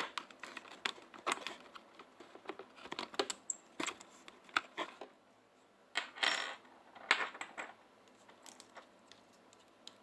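Small tools and phone parts clicking, tapping and scraping during a smartphone battery-replacement repair: irregular light clicks, with a couple of brief scrapes about six and seven seconds in.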